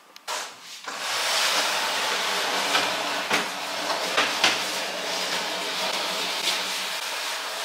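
Wooden TV console being dragged across a hard floor: a steady scraping rumble with a few sharp knocks, starting about a second in.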